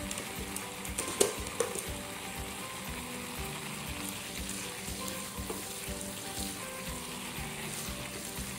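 Butter melting and sizzling in a small pot, a steady fine crackle, with a sharp click about a second in.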